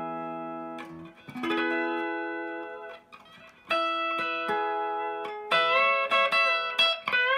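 Electric lap steel guitar playing sustained, ringing notes and harmonics, with new notes picked about one and a half and about four seconds in. From about five and a half seconds in, several picked notes bend up in pitch and back down as a string is pushed behind the steel bar, the pedal-steel-like bend.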